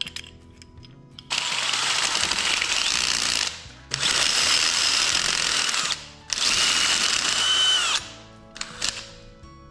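Power drill run in three bursts of about two seconds each, drilling out a truncated hole in a metal cabinet clamp; its whine falls as the motor spins down at the end of the last burst. Background music plays throughout.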